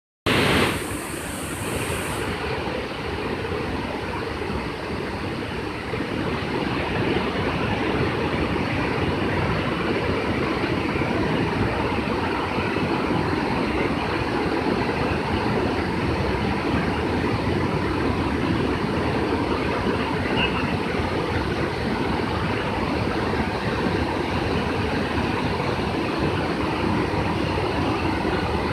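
Water rushing over a dam's curved weir in a steady, unbroken wash of sound, heaviest in the low end, with a brief higher hiss in the first couple of seconds.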